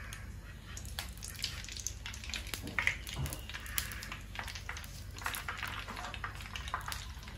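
Cooking oil pouring in a stream into a hot nonstick frying pan, a faint splashing with scattered light crackles.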